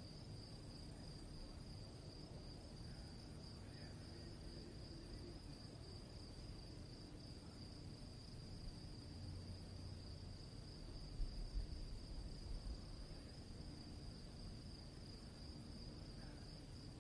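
Crickets chirping in a steady, high trill over a low rumble, with a few soft low bumps a little past the middle.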